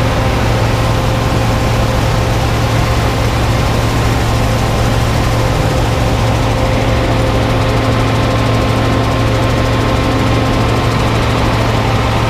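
New Holland combine running under load while harvesting soybeans: engine and threshing machinery make a loud, steady drone with a deep hum and several constant tones above it, unchanging throughout.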